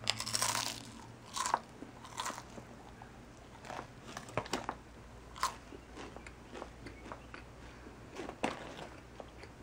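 Crunchy bites and chewing of a dark-chocolate-coated rice cake: a run of irregular crisp crunches, loudest in the first second or so, with another loud bite near the end.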